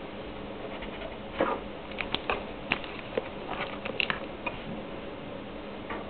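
A pen scratching and tapping on paper at a desk, with a run of sharp clicks and knocks around the middle, over a steady low hum.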